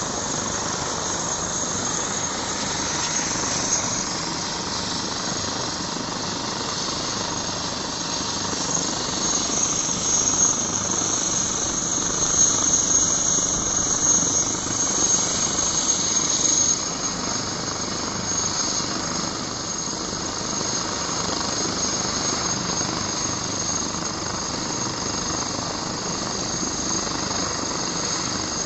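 Eurocopter EC135/Airbus H135 helicopter running on the ground with its rotors turning: a steady high-pitched turbine whine over engine and rotor noise, growing louder for several seconds in the middle.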